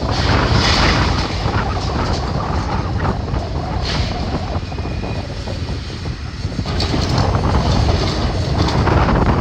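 Heavy demolition machinery working through brick rubble: a steady low engine rumble with irregular crunching and clattering of debris.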